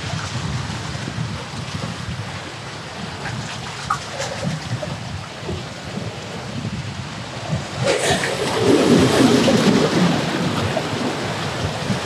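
Ocean surf washing against the boulders of a rock jetty, with wind rumbling on the microphone; a bigger wave surges in about eight seconds in.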